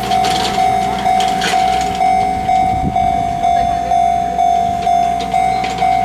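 Japanese railway level-crossing warning bell ringing in steady, evenly spaced single-pitched strokes, about two a second: the signal that a train is approaching and the crossing is closed.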